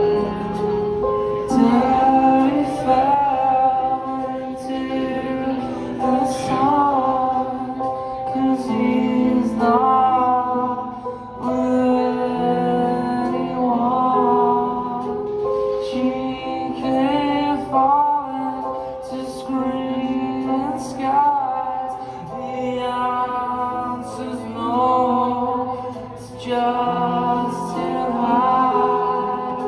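Band playing live: a sung vocal melody over keyboards, electric guitar and drums, with sustained chords underneath.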